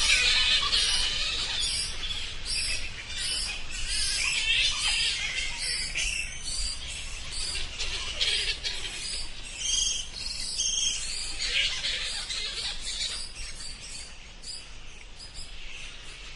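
Bats squeaking and chittering: rapid, overlapping high-pitched chirps that grow fainter toward the end.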